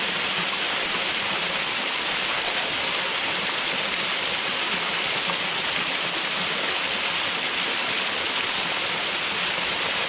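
Water falling over the upper drop of a waterfall, a steady, even splashing hiss with no breaks or changes.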